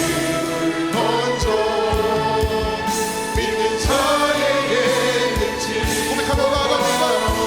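Contemporary worship music: a praise band playing with a steady kick-drum beat and sustained keyboard chords, with voices singing along.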